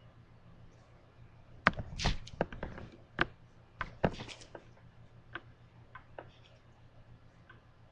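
A quick run of irregular clicks, taps and knocks with short rustles, loudest in the first half, then a few faint ticks, over a low steady hum.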